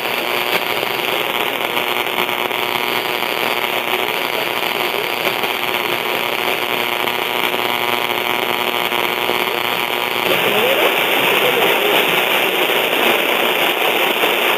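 Static and hiss on an AM radio tuned to 1260 kHz, a weak long-distance medium-wave signal buried in the noise. About ten seconds in, the noise grows louder and harsher.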